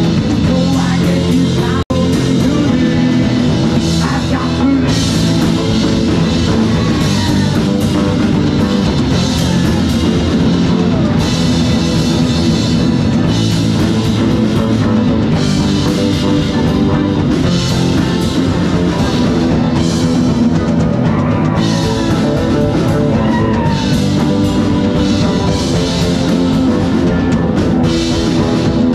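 Live rock band playing loud: drum kit, bass guitar and electric and acoustic guitars. The sound cuts out for an instant about two seconds in.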